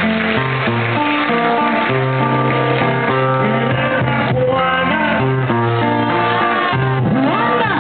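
Live music led by guitar: a plucked melody over changing bass notes.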